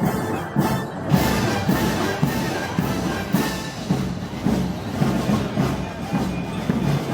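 Festival band music for Moros y Cristianos: a wind band playing a march with a steady beat.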